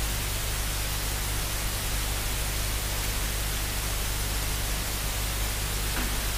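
Steady hiss with a low, constant electrical hum underneath: the recording's own background noise.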